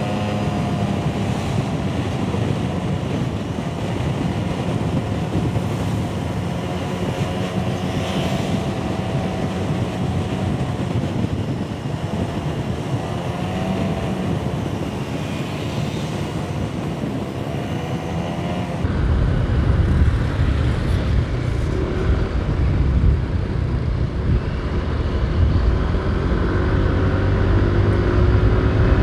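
Motorcycle riding in traffic: the engine runs with its pitch wavering up and down over steady road and wind noise on the microphone. About two-thirds through, the sound shifts suddenly to a louder, deeper rumble.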